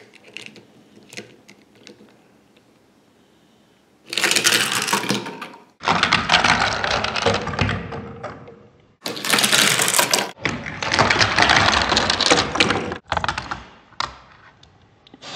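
Light plastic clicks and clatter from a toy car running on a plastic Hot Wheels track set. These are followed by several loud stretches of dense crackling rattle, each starting and stopping abruptly.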